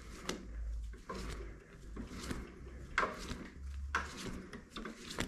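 A tap held in a drill press chuck is turned by hand into a metal part, with the spindle off. Light clicks and knocks come about once a second as the chuck and tap are worked.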